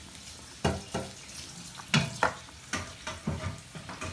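Wooden spoon stirring a coconut-milk curry in a steel pot, about eight short, uneven scrapes and knocks against the pot, over a faint steady simmer.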